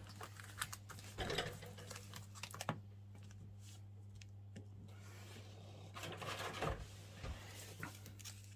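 Booster packs of trading cards handled on a table: faint scattered clicks and short rustles, a little busier about a second in and again near the end, over a steady low electrical hum.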